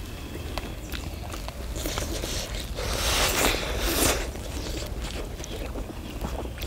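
People eating hot fish cake skewers: breathy blowing and slurping on the steaming food, loudest for about a second midway, with small clicks of chewing and skewers over a steady low rumble.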